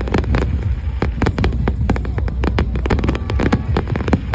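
Fireworks exploding: dense, rapid crackling and popping over a continuous low rumble.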